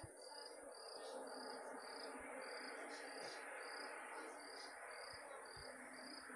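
Faint chorus of chirring insects: short chirps repeating about twice a second over a steady high-pitched trill.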